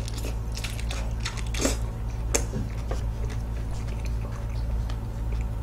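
Wet mouth sounds of biting into and chewing a soft fresh fig: scattered short squishy clicks and smacks, over a steady low hum.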